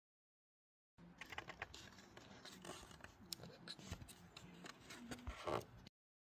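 Small plastic clicks and scrapes of fingers handling the fog light bulb's electrical connector and its locking tab, loudest a little past five seconds in. Dead silence for about the first second, and the sound cuts off just before the end.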